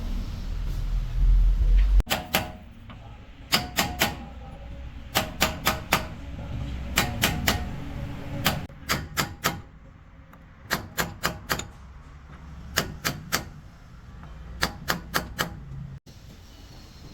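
Sharp metal-on-metal hammer strikes in quick groups of three or four, each group a second or two apart, with a slight ring to each blow. A low rumble runs under the first two seconds and cuts off suddenly before the strikes begin.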